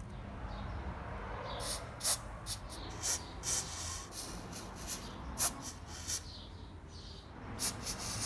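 Aerosol lubricant sprayed through a straw in about ten short hissing bursts onto the rusted pivot joints of a hand punch, working oil into the seized parts.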